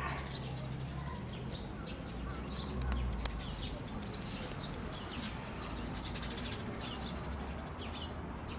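Small birds chirping, many short high calls in quick succession, over a low steady rumble.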